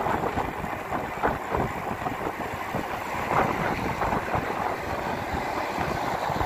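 Steady wind rush on the microphone of a bicycle being ridden along a paved road, with a low road rumble beneath.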